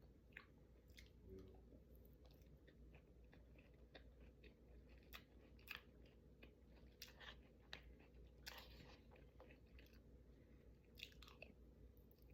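Faint chewing of a person eating, with scattered irregular mouth clicks and crunches over a low steady hum.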